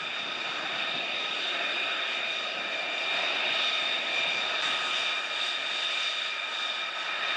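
Jet engines of F-35 fighters taxiing on a flight line: a steady high whine with several held tones over a rushing hiss.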